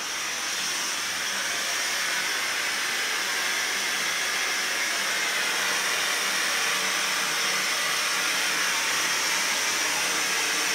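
Steam hissing steadily from the steam head of a Kohler K9 (model 1659) steam shower generator, getting a little louder over the first second. The unit, repaired after an error 5 low-water fault, is making steam again.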